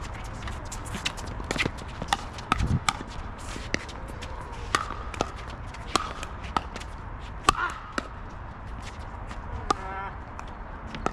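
Pickleball rally: a quick, irregular series of sharp pops as paddles strike the hollow plastic ball, back and forth between the players.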